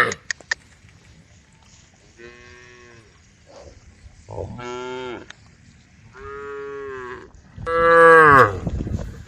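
Cows mooing: four drawn-out moos, each just under a second long, starting about two seconds in and coming roughly one to two seconds apart. The last moo is the loudest.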